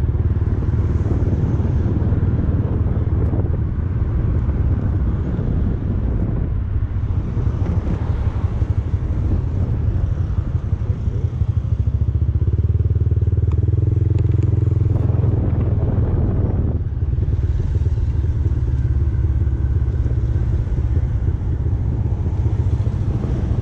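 Motorcycle engine running while the bike is ridden through slow traffic, heard from on the bike over a heavy, steady low rumble. The engine note holds steadier between about 12 and 17 seconds in, then changes.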